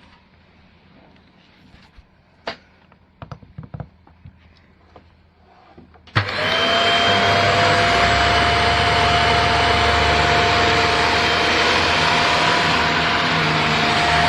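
A vacuum cleaner switches on about six seconds in and runs steadily with a constant whine, after a few quiet clicks and knocks.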